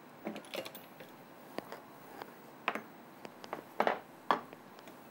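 Scattered light clicks and taps of a ceramic plate, bowl and spoon being handled as breadcrumbs are spread out on a plate.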